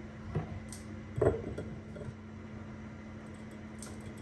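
Two light knocks of kitchen utensils being handled, the second stronger: a mesh strainer set onto a small glass jar and a frying pan lifted off a wooden board. Then a faint steady hum while used frying oil is poured through the strainer.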